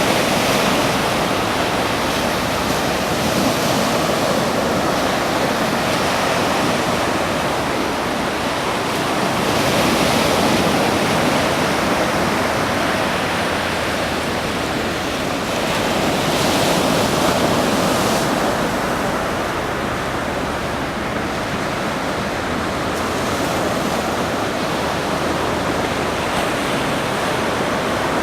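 Ocean surf washing onto a beach: a steady roar of breaking waves that swells and eases every several seconds.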